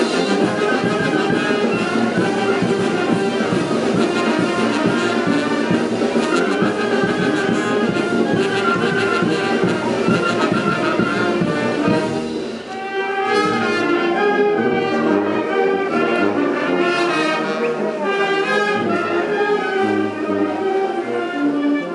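A brass band with a sousaphone plays lively dance music. About halfway through the sound thins out briefly, then carries on in a lighter passage in which the deep bass notes stand out.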